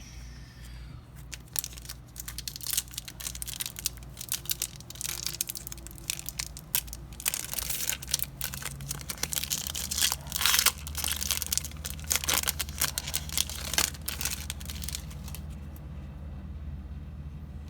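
Trading-card pack wrappers being torn open and crinkled: a dense run of crackling and rustling that dies down a couple of seconds before the end.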